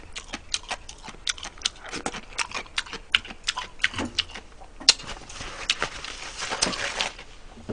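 Close-miked eating sounds: chewing and lip-smacking as a run of sharp wet clicks, several a second, while eating braised pork ribs. A soft rustle of a tissue wiping the mouth comes in about five seconds in.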